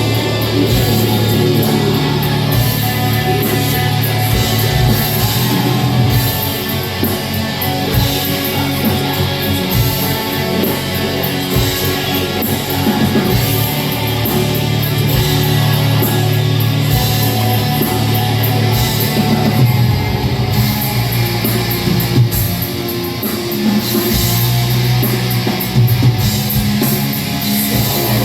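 Black metal band playing live and loud: distorted electric guitars, bass and a drum kit in a dense, unbroken wall of sound.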